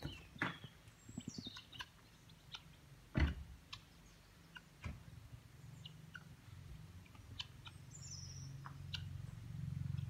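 Scattered chirps and two short, falling high calls from small wild birds, with sharp clicks and one loud thump about three seconds in. A low rumble builds over the second half.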